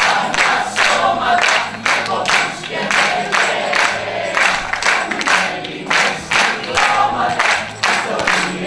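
A group of voices singing with music, over a steady sharp beat of about two to three strokes a second.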